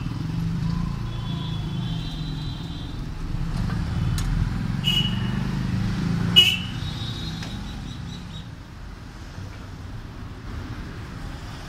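Street traffic: vehicle engines running past with several short horn toots, the loudest a sharp one about six seconds in. The traffic noise eases off after about eight seconds.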